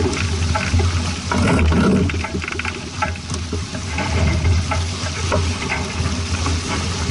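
Water splashing and fizzing against a sailing boat's hull, a crackling hiss over a steady low rumble.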